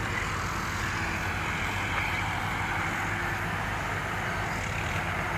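Rice combine harvester running steadily: an engine drone under a wide wash of machinery noise, the machine working again after a breakdown.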